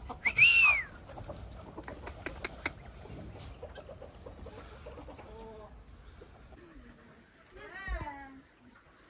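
Farmyard poultry calling: a loud, high, arched chirp just after the start, a few sharp clicks around two seconds in, then lower calls, one falling in pitch about eight seconds in. A cricket chirps in an even pulse through the second half.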